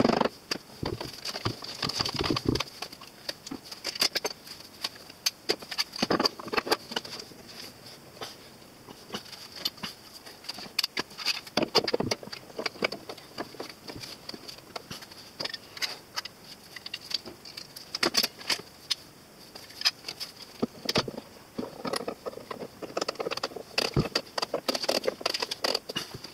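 Irregular knocks and clatter of a cutting-board glue-up: a mallet tapping glued end-grain maple strips flush, then steel pipe clamps being set across the board and tightened, with metal rattling and clicking. A steady high-pitched whine runs underneath.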